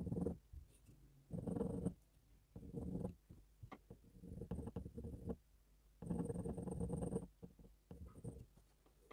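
Mechanical pencil lead scratching across a toned drawing board in short sketching strokes, about six rasping strokes with brief pauses between, close-miked.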